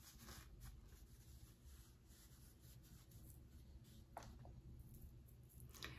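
Near silence with faint rustling of a cloth drawstring pouch being handled and opened, and a couple of faint taps, one about four seconds in and one near the end.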